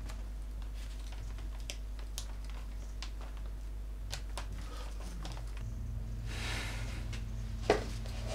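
Quiet room with a steady low hum and scattered faint ticks and clicks. A brief rustle comes about six and a half seconds in, then a single knock near the end.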